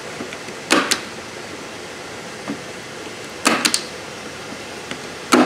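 A hand-held framer's point driver firing points into the inside edge of a wooden picture frame to lock the backing in place. Three sharp snaps, each with a quick second click: about a second in, at three and a half seconds, and near the end.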